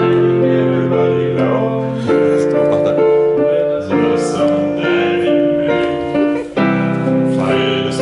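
Digital piano playing long held chords that change every second or two, with a man singing along into a microphone.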